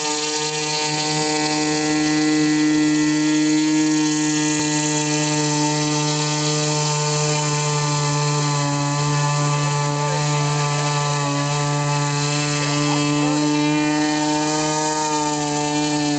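Model airboat's small engine and air propeller running at speed, a steady buzzing drone that holds a nearly constant pitch, sagging slightly midway and picking up again.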